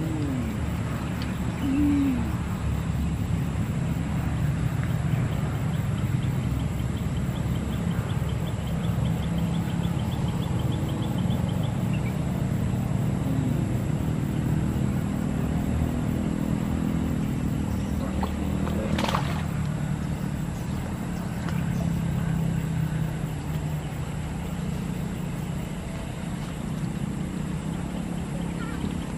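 Steady low hum of a running motor, with a run of fast, even clicks about a third of the way in and one short swish about two-thirds of the way in.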